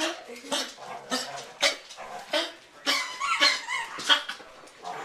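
A dog coughing in a fit: a run of short, harsh coughs, roughly one every half second.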